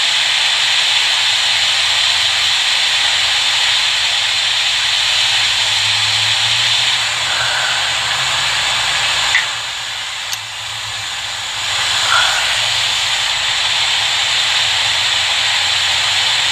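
Hot-air rework station blowing a steady hiss over a phone logic board to soften the glue around the Tristar charging chip. The hiss dips for about two seconds around ten seconds in.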